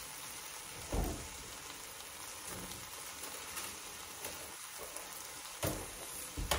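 Steak sizzling as it fries in a pan, a steady hiss, with a short knock about a second in and two more near the end.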